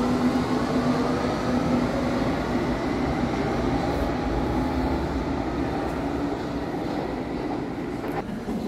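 Berlin U-Bahn train pulling out of an underground station: electric motors whining up in pitch over the rumble of wheels on rails, the sound slowly fading as the train runs into the tunnel.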